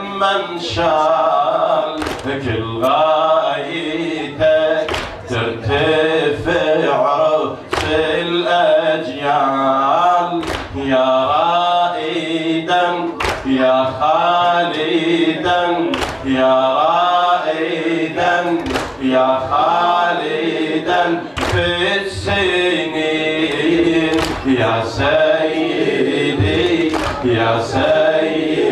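A man chanting a latmiya, a Shia mourning lament, through a microphone in rising and falling sung phrases. Sharp slaps land about every one to two seconds, the chest-beating that keeps time in a latmiya.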